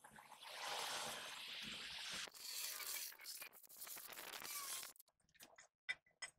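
Electric arc welding on a steel bracket, a steady crackling hiss with a couple of brief breaks, which stops about five seconds in. A few sharp light clicks follow near the end.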